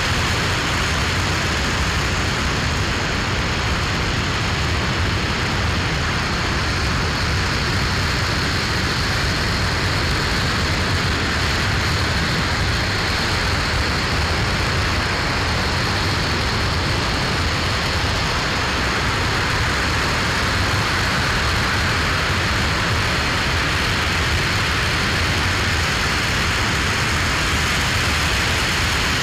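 Aerojet Rocketdyne RS-25 liquid-hydrogen/liquid-oxygen rocket engine firing at steady state during a static hot-fire test. It makes a loud, unbroken rush of noise that holds one level throughout, with deep rumble underneath.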